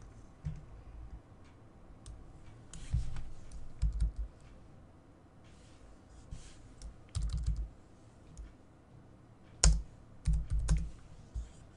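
Computer keyboard being typed on and clicked in short irregular clusters with pauses between, the sharpest click about two-thirds of the way through.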